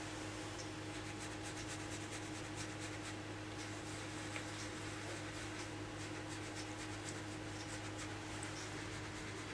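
Quiet room tone: a steady low electrical hum under a hiss, with faint scattered clicks and rubbing.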